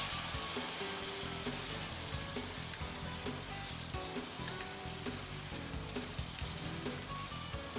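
Homemade tomato purée poured into hot butter and spices in a frying pan, sizzling hard the moment it hits and keeping up a steady sizzle as it is worked with a spatula.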